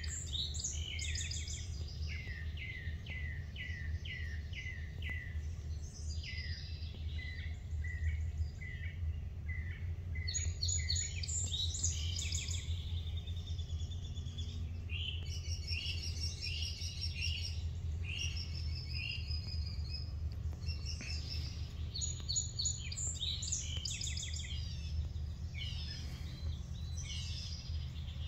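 Several songbirds singing and chirping, starting with a run of down-slurred notes at about two a second, over a steady low rumble.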